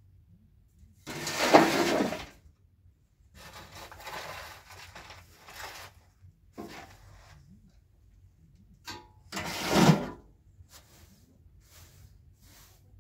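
Short straw hand broom sweeping dust off a packed-clay ledge in a series of brushing strokes, the loudest about a second in and again near ten seconds in, with softer strokes between.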